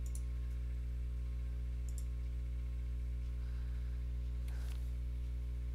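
A few faint computer mouse clicks over a steady low hum.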